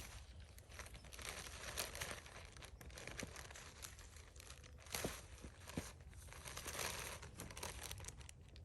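Pine needles and twigs rustling and crackling as they are handled and picked by hand, with a few sharp snaps.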